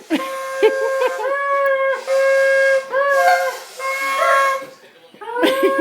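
Reedy horn-like honking: a series of long held notes on one pitch, each about a second, bending at the start and end. Shorter squawking glides come in between.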